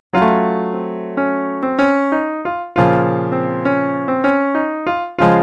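Intro theme music on a keyboard: piano chords struck and left to fade, about two a second, with the strongest chords near the start, about halfway and near the end.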